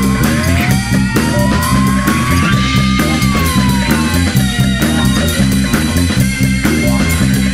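Background rock music: guitar over a steady drum beat, with gliding guitar notes that slide down and up.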